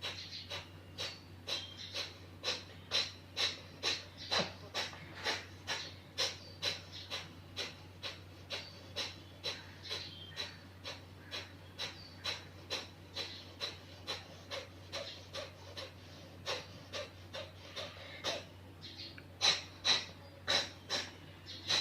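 Kapalbhati breathing: a woman's rapid, forceful exhalations through the nose, about two a second, each a short sharp puff of air, growing louder near the end. It is done after jal neti nasal rinsing to push out any water left in the nose.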